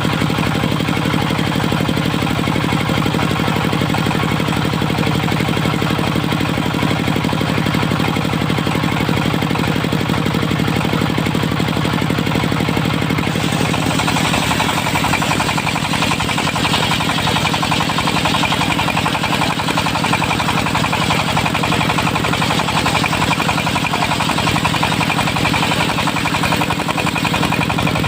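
Dongfeng diesel engine running steadily, driving a circular sawmill. About halfway through, the sound changes: the low hum breaks up and a harsher, higher-pitched noise comes in.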